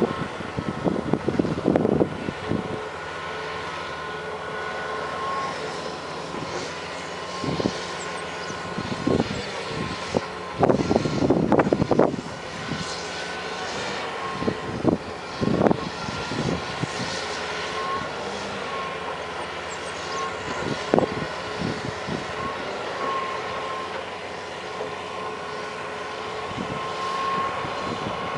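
John Deere excavator running steadily with a whine held at a few fixed pitches, broken several times by loud, short bouts of clattering and knocking from the machine at work, the longest about ten to twelve seconds in.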